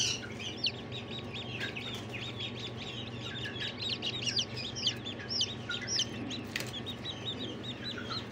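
A brood of newly hatched domestic chicken chicks peeping continuously: many short, high, falling peeps, several a second, overlapping from different chicks. A steady low hum runs underneath.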